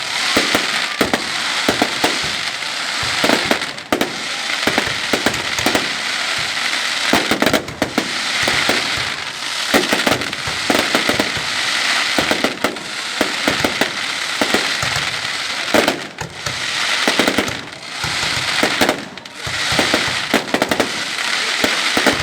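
Fireworks display: a dense run of sharp bangs from bursting shells over continuous crackling, rising and falling in swells.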